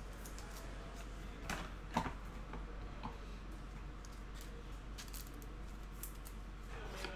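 Faint handling of trading cards on a desk: a few light taps and rustles, the clearest two about one and a half and two seconds in, over a low steady hum.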